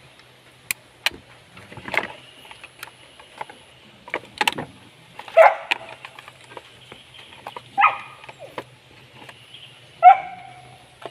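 A dog barking a few times: short, sharp barks about five, eight and ten seconds in, the last one the loudest. Between the barks come scattered light clicks and knocks, over a faint steady hum.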